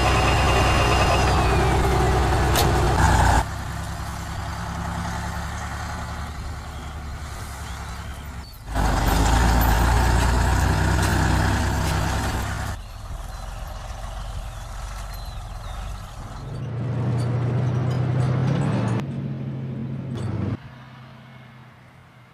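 Engine of a six-wheel BM-21 Grad rocket-launcher truck running as the truck moves off. The sound jumps abruptly several times in level and character. Late on, the engine note rises as it revs.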